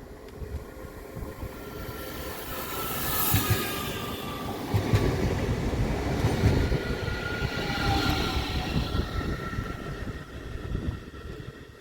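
A train passing by: the rumble of wheels on rail builds up, peaks for several seconds with repeated knocks from the wheels and a whining tone, then fades away near the end.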